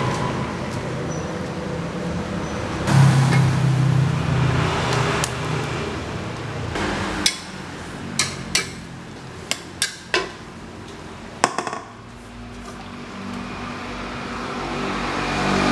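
Metal spatula knocking and clanking against a steel wok several times in quick succession about halfway through, over a steady rushing noise.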